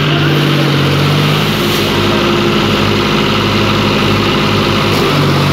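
Diesel tractor engines running under load in deep mud, the nearest and loudest being the John Deere 5050D's three-cylinder diesel. The engine note shifts about a second and a half in and again near the end.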